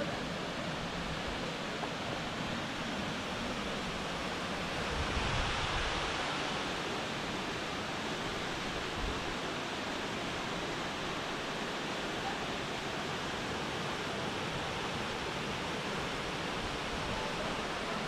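Steady rush of water from a creek waterfall, swelling a little about five seconds in.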